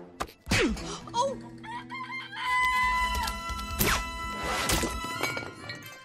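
Cartoon chicken squawking and clucking frantically in a scuffle, with hits and two sweeping whooshes about four and five seconds in, over held orchestral music.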